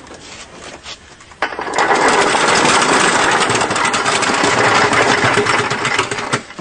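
A machine running with a steady, dense mechanical whir, starting about a second and a half in and cutting off just before the end.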